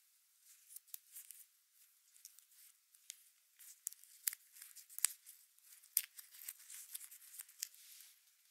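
Light rustling and handling noise with several sharp clicks as gloved hands unwind a coiled USB-C to Lightning charging cable.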